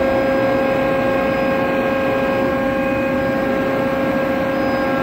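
Tarus CNC gun drilling machine running under power: a steady mechanical hum with a constant whine that does not change.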